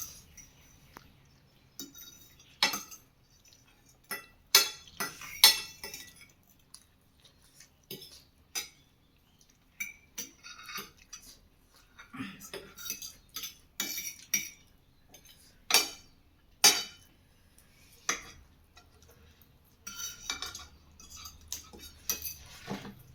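Cutlery clinking and scraping against plates as people eat, in many short, irregular clinks.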